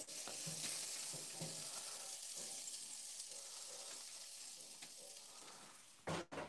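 A thick beef steak sizzling on the hot grate of a gas grill, a steady hiss that fades out as the steak is lifted off. Two short knocks come near the end.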